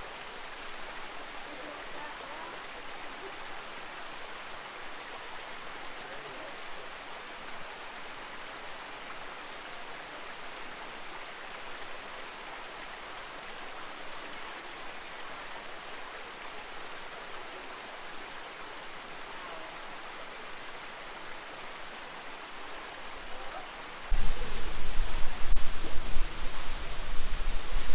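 Steady rush of a creek and waterfall. About 24 seconds in it jumps suddenly to a much louder, fuller rush with a deep rumble, close beside the falling water.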